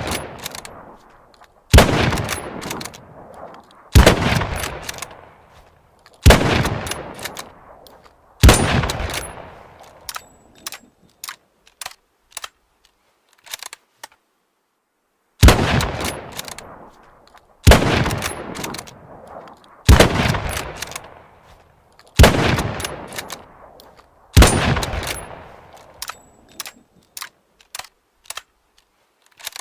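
Mosin-Nagant bolt-action rifle (7.62×54mmR) firing nine shots, about one every two seconds, each with a long echoing tail. The shots come in a string of four and a string of five, each followed by a series of small metallic clicks.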